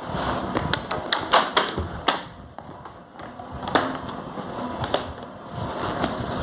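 Packaging and shoes being handled: a quick run of sharp taps and clicks about a second in, then single clicks a few seconds later, over rustling.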